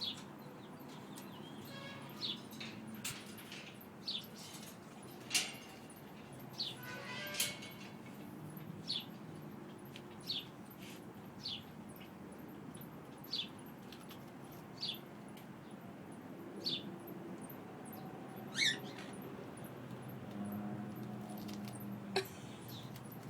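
A pet bird giving short, high chirps, one every second or two, while it picks at a chili pepper.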